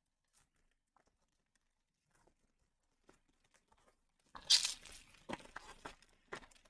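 Foil wrapper of a Pokémon booster pack being torn open: a sharp tear about four seconds in, followed by a couple of seconds of crinkling as the pack is handled. Before it there are only faint small handling ticks.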